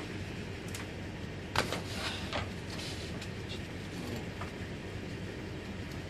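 A steady low rumble, with a few sharp knocks and rattles; the loudest knock comes about a second and a half in.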